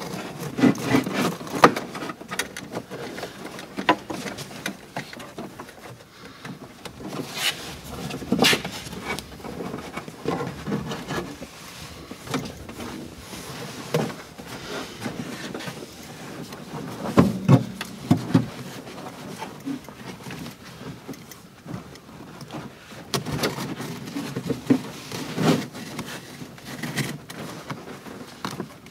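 Old car carpet being pulled and ripped out of the floor, with irregular rustling, scraping and knocks.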